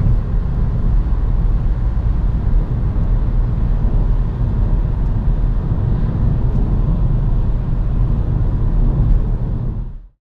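Cabin noise of a VW Golf Sportsvan with a 1.5 TSI turbocharged four-cylinder petrol engine and DSG gearbox, heard from the driver's seat while cruising: a steady rumble of engine and road noise that fades out near the end.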